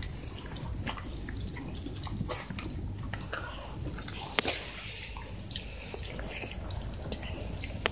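Shiba Inu chewing a milk-flavoured dog chew on the floor: wet mouth smacking and irregular clicks of teeth.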